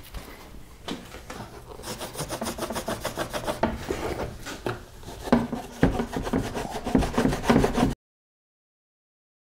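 A plastic bumper cover from a Pontiac Grand Prix being dragged and turned over on a wooden workbench: a rapid, chattering scrape of plastic rubbing on wood that grows louder, then cuts off abruptly into dead silence near the end.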